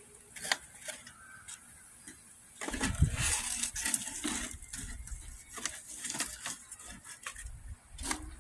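Cardboard soda boxes being torn, crumpled and pushed into a metal barbecue grill: rustling and crackling with knocks against the grill body. A heavy knock comes about three seconds in, and the rustling and clatter carry on after it.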